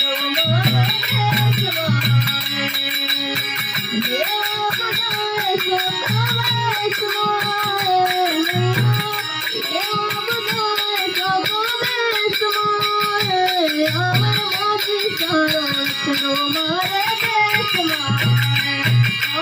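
Instrumental music of a Rajasthani folk bhajan: a gliding melody line over a steady, fast percussion rhythm with recurring low drum beats, and no singing.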